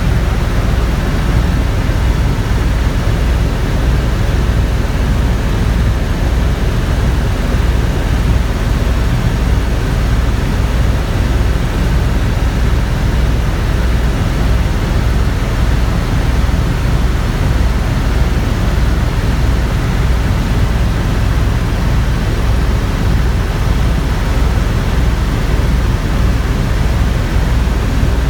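Helicopter in flight: steady, loud rotor and engine noise, heaviest in the low end with a fast, even pulse from the rotor.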